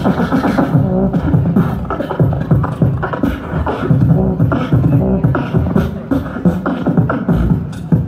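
A beatboxer performing into a handheld microphone, amplified through large PA speakers: a fast run of clicking, drum-like mouth sounds over deep thumping kicks.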